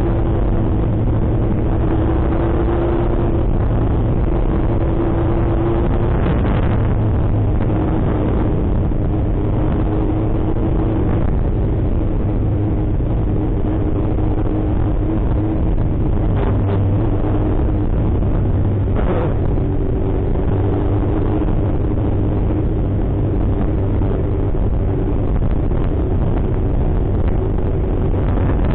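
Steady road and engine noise of a car driving, heard from inside the cabin through a dashcam microphone. A low hum runs under a drone that shifts slightly in pitch as the speed changes.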